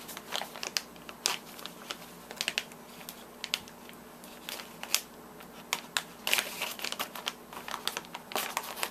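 Scissors snipping open a clear plastic bag, the plastic crinkling and crackling as it is handled. The sound comes as irregular sharp clicks and rustles, some in quick clusters.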